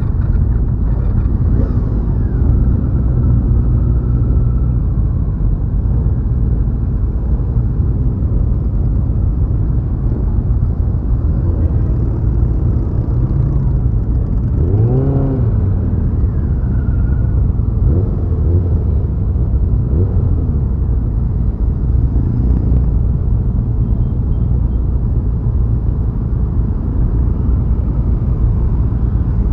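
Motorcycle engines running in a steady, loud rumble, with one engine revving up and dropping back about halfway through and a few shorter rises in pitch later.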